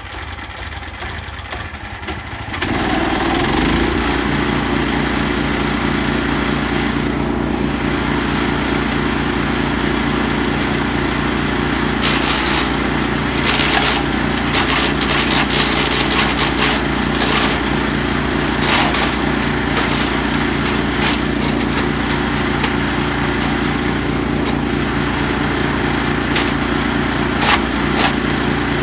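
A 14 hp petrol wood chipper's engine comes up to full speed about two and a half seconds in and runs steadily. From about twelve seconds in, short bursts of crackling and clatter come and go over the engine as plastic hose is fed into the chute and cut up.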